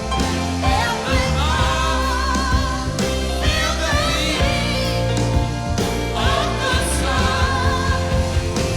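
Live rock song playing: a sung lead vocal with wide vibrato over sustained bass, drums and a full band.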